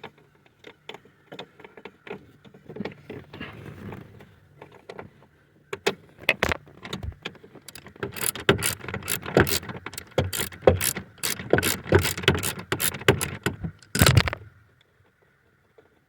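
Ratchet wrench with a 7mm socket backing out the bolt that holds an accelerator pedal position sensor. First faint handling rattles, then from about six seconds in a fast run of ratchet clicks that stops suddenly near the end.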